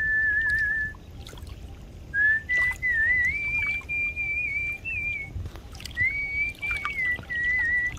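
Human whistling of a melody: a clear, wavering tune that stays around one pitch, breaking off briefly about a second in and again just past the middle. A low rumble runs underneath.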